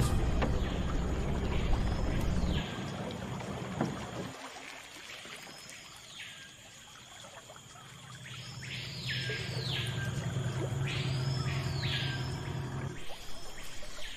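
Low steady hum of a Yamaha 15 outboard motor running, fading away about four seconds in and returning later, under a bird's repeated whistled calls that rise and fall, some coming in close pairs.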